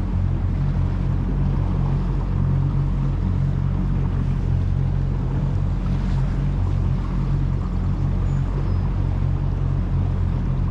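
A motorboat's engine running at a steady speed, a low even hum, under a steady wash of water and wind noise.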